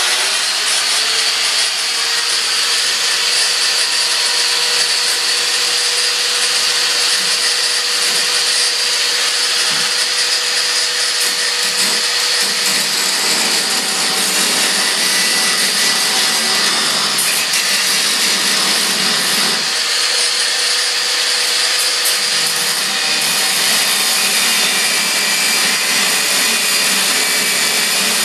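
Corded angle grinder with its disc cutting through a 1/4-inch metal bolt: a loud, continuous grinding with a steady whine.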